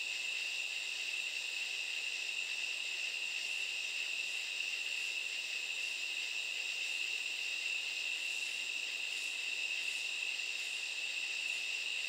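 A night chorus of katydids: a steady, unbroken high-pitched drone. From a few seconds in, faint evenly spaced pulses of a little more than one a second join it higher up.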